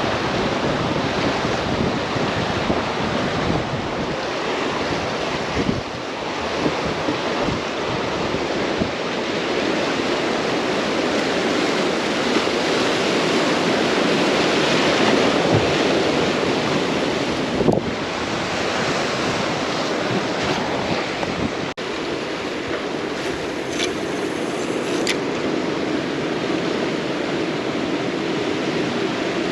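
Ocean surf washing in against a rocky shore, a steady rush that swells to its loudest about halfway through, with wind on the microphone and a couple of faint clicks.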